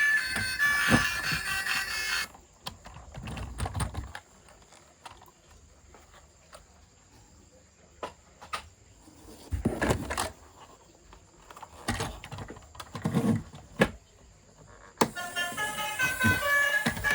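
Background music that cuts off about two seconds in. Then come about twelve seconds of handling noise from toys and their packaging: scattered clicks, rattles and a few heavier knocks. The music comes back near the end.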